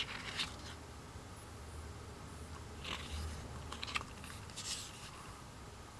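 Paper pages of an album photobook being turned by hand: a few short, crisp rustles and flaps, one right at the start and a cluster about three to five seconds in.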